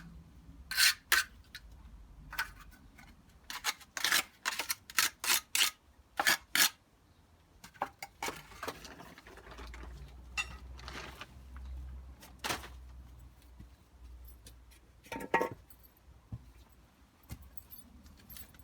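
Hand tools working fresh concrete: a quick run of short scraping strokes in the first seven or so seconds, then a quieter low rumble, with two single strokes later on.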